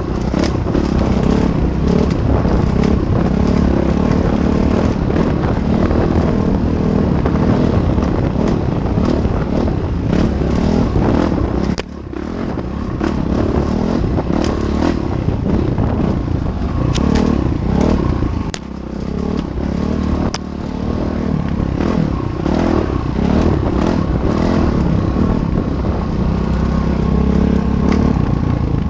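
Train passing over a railway bridge: a loud, steady rumble with a rapid run of clicks and clatter, dipping briefly twice.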